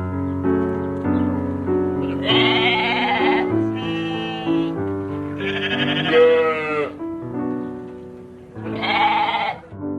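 Bleating, four long wavering calls, one of them fainter, over gentle background piano music.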